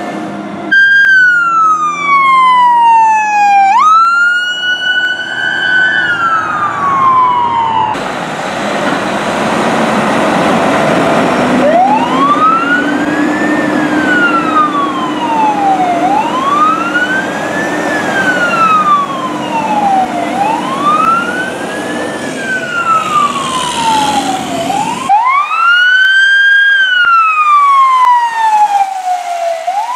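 Fire truck sirens wailing as responding apparatus pass, in three separate takes. First a siren slides down and sweeps back up. Then a siren rises and falls about every four seconds over loud truck engine and road noise. Then another wailing siren.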